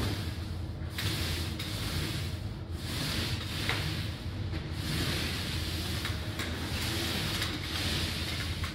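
A paint roller on an extension pole rolling a first coat of paint onto fresh drywall. It makes a swishing hiss in repeated strokes, roughly one every one and a half to two seconds, over a steady low hum.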